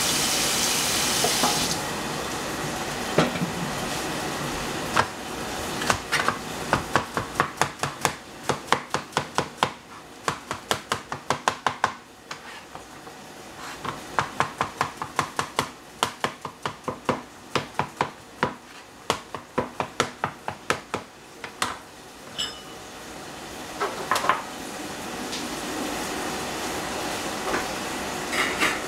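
Chinese cleaver slicing a zucchini on a plastic cutting board: runs of quick, even knocks, about three a second, with short pauses between runs. A pan of green beans sizzles in the background, loudest at the start and again near the end.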